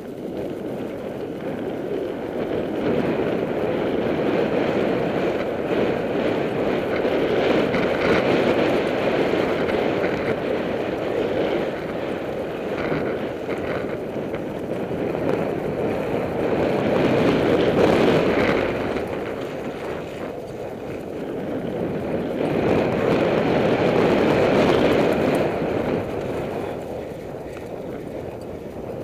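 Mountain bike riding fast down a loose dirt and gravel track: a steady rush of wind on the bike-mounted microphone mixed with the crunch of knobby tyres and rattle of the bike, swelling and easing several times with speed.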